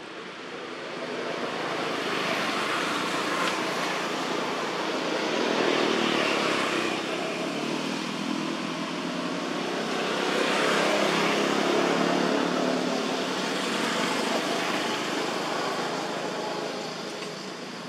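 Road traffic: vehicles passing, their noise swelling and fading over several seconds, loudest about six and again about eleven seconds in.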